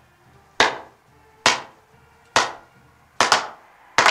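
Ice hockey stick slapping pucks in a passing drill: sharp cracks about once a second, each echoing in the rink, with two strikes close together about three seconds in.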